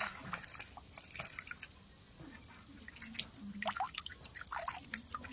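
Water dripping from a landing net held over the river, the drops plinking irregularly onto the water surface.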